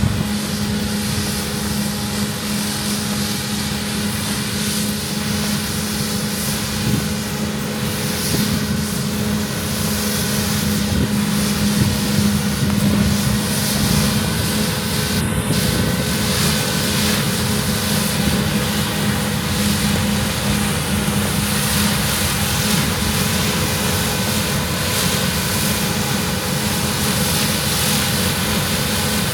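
Claas Lexion combine harvester running steadily while harvesting wheat: a constant engine drone with a strong steady hum and a rushing noise over it.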